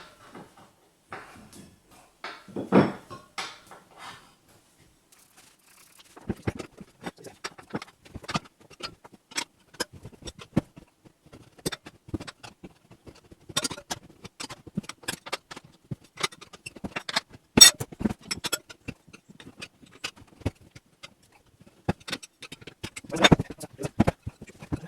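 Irregular metallic clicks, clinks and knocks of hand tools working a motorcycle tyre back onto its wheel rim, with a few louder knocks.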